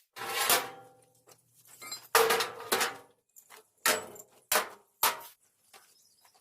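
Steel pieces knocking and clanking together, about six irregular clanks, each ringing briefly.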